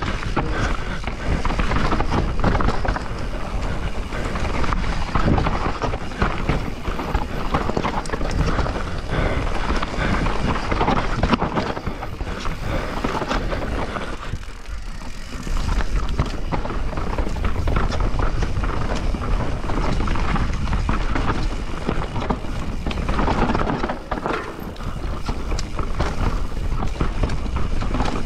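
Transition Spire, a 170 mm 29er enduro mountain bike, descending a loose, dry dirt trail: tyres rolling and scrabbling over dirt and stones, with a constant clatter of chain and frame over the bumps. The noise eases briefly about halfway.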